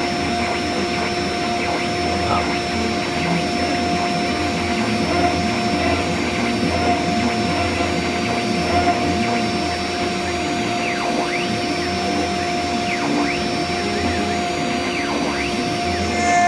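CNC router spindle running with its end mill cutting into a metal motor-mount bracket: a steady whine under a rough cutting noise, with small shifts in pitch as the cutter load changes.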